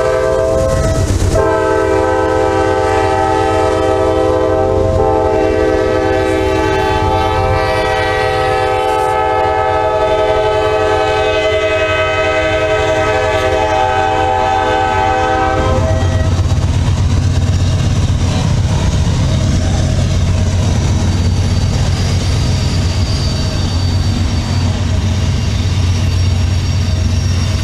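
Nathan K5LA multi-chime air horn on a Norfolk Southern GE C40-9 locomotive sounding one long steady blast, with a short break about a second in, and cutting off about sixteen seconds in as the locomotives pass. After that, the low rumble of the diesel locomotives and the freight cars rolling by, with the clickety-clack of wheels over the rail joints.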